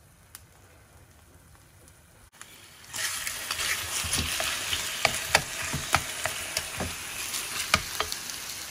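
Quiet for the first few seconds, then raw chicken pieces start sizzling in hot olive oil in an enamel tin, a steady frying hiss with sharp clicks from tongs stirring and turning the pieces.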